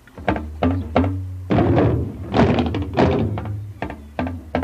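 Dagbamba lunga (hourglass talking drums) struck with curved sticks in an irregular run of sharp strokes, some of them bending in pitch. The strokes come thicker and louder from about a second and a half in.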